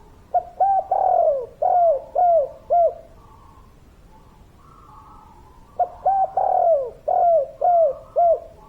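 Spotted dove cooing: two phrases of about six short, falling coos, the second starting about five seconds after the first. Fainter, higher calls are heard between the phrases.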